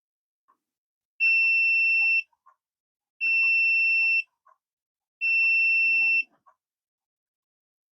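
Three identical electronic beeps from a Sunlu filament connector, each a steady high tone about a second long, spaced two seconds apart.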